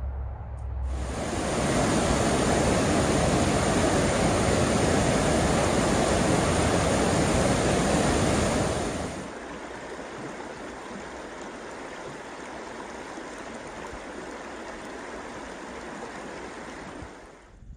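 Rushing water: a loud rush for about eight seconds that drops suddenly to a quieter, steady hiss, which stops just before the end.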